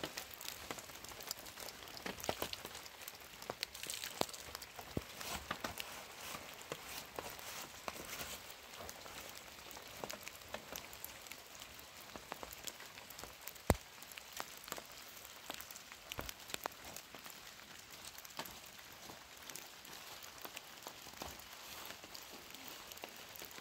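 Steady rain falling, with many separate drops ticking and one sharp click about fourteen seconds in.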